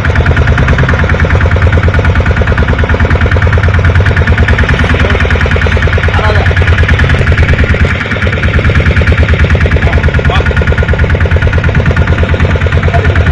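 Boat engine running steadily and loudly, with a fast, even chugging pulse; it eases briefly about eight seconds in.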